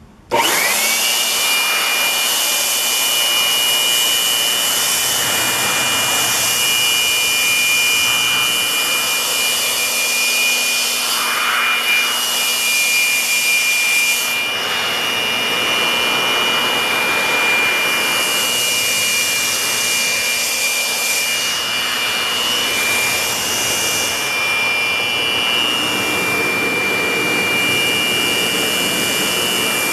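Handheld leaf blower switching on: its high whine rises quickly to a steady pitch, then it runs continuously with a loud rush of air blown through the nozzle onto a laptop keyboard.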